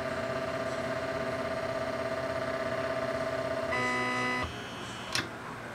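Motor of a CTC SLA resin 3D printer moving the build platform, a steady whine that turns louder and brighter about three and a half seconds in, then stops abruptly. A single click follows near the end.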